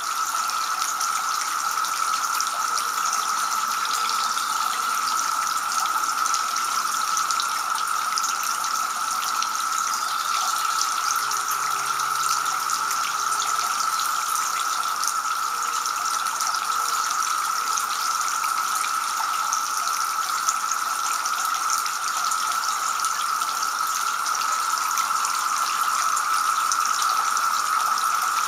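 Two-tier garden fountain running, water splashing and trickling steadily from the upper bowl into the lower basin.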